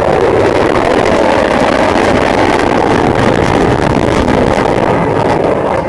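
F-15 fighter jet's twin engines in a loud pass overhead: a dense, rushing jet roar that holds steady and starts to drop away at the very end.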